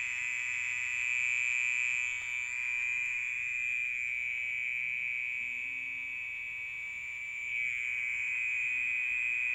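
A frog's continuous, shrill, high-pitched trill, held steady and growing a little louder near the end, which the owner takes for the frog snoring in its sleep.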